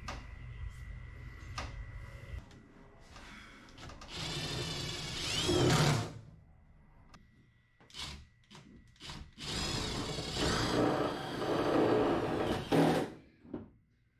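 Power drill driving screws into the truck bed to mount the storage box bracket, running in two bursts: about two seconds with a rising whine, then about three and a half seconds. A few short knocks come between the bursts.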